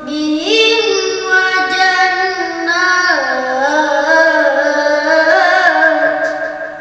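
A boy's solo voice chanting Qur'anic recitation in the melodic tilawah style, holding long notes with ornamented turns in pitch. The phrase fades out near the end.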